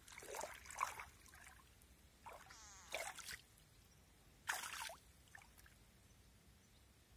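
Faint water splashing and dripping at the river surface, in a few short bursts, the loudest about four and a half seconds in.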